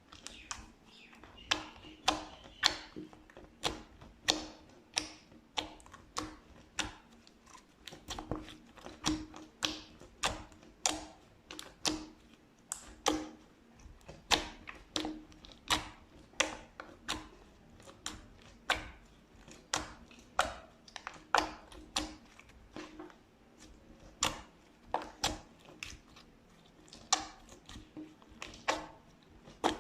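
Slime being pressed and squished by hand, giving a run of sharp pops and clicks about one to two a second, over a faint steady low hum.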